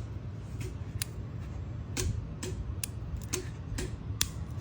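LED driver (transformer) of a ceiling lamp clicking sharply and irregularly, about two clicks a second. The clicking is arcing at a loose, burnt solder joint inside the driver.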